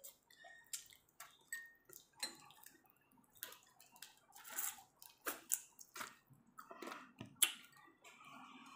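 Wet chewing and lip-smacking of someone eating shell-on prawns with her hands: a string of short, sharp, irregular smacks and clicks.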